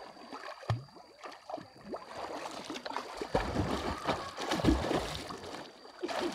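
Water gurgling and sloshing around a raft being paddled, with uneven low thumps in the middle.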